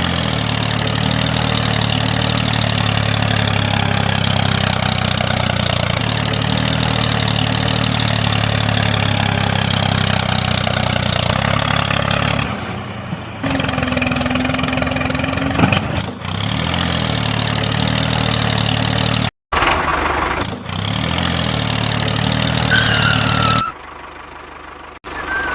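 The small motor of a DIY mini tractor running steadily. The sound changes about halfway through and breaks off abruptly a few times near the end.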